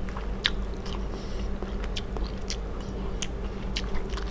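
Close-miked chewing of a mouthful of rice and eel soup, with scattered sharp wet mouth clicks.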